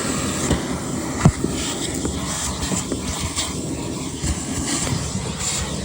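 Vacuum cleaner running steadily, sucking debris out of a car's trunk, with scattered clicks and one sharp knock about a second in.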